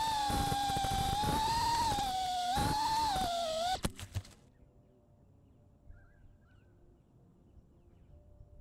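FPV racing drone's electric motors and propellers whining, rising and falling in pitch with the throttle. A few sharp knocks come just under four seconds in, and the motors cut off suddenly. Faint bird chirps follow.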